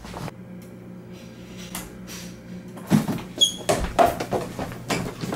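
A brief high squeak, then a quick run of sharp knocks and clatters, like household things being handled or bumped.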